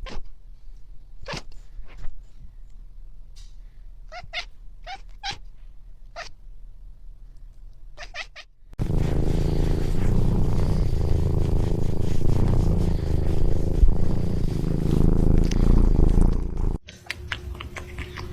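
A cat purring loudly, close up, for about eight seconds from roughly halfway in, with a deep, rumbling, even texture. Before it, only scattered short clicks and taps.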